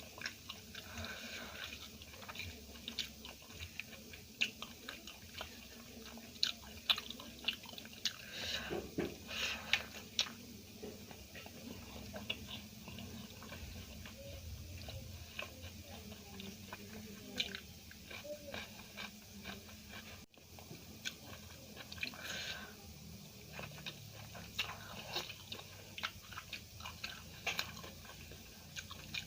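A person chewing and biting food close to the microphone: wet mouth sounds and many small, sharp crackles of food, busiest about a third of the way in.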